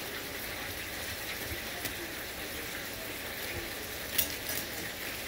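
Hot frying grease sizzling steadily with fine crackles, with one sharp tap about four seconds in.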